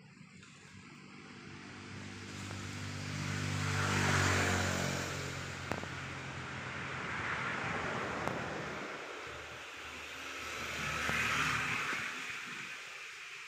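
Motor vehicles driving past: one swells up and passes about four seconds in, its engine note dropping as it goes by. A second swells and fades later on.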